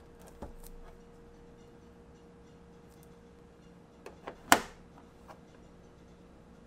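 Light clicks and taps of an iPhone XS box and its packaging being handled, with one sharp knock about four and a half seconds in. A faint steady hum lies underneath.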